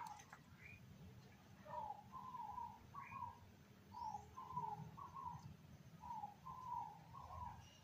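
A bird calling faintly in short phrases of three or four low notes, repeated about every two seconds, with a couple of brief higher chirps in between.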